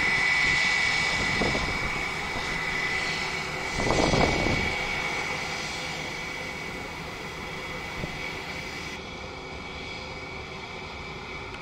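Airbus A320 jet airliner taxiing, its engines giving a steady high whine over a broad rush that slowly fades. A brief low rumble about four seconds in is the loudest moment.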